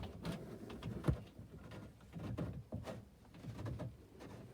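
Choke knob on a Scootacar being pulled out and pushed back in on a newly fitted choke cable: soft knocks and rubbing, with one sharp knock about a second in.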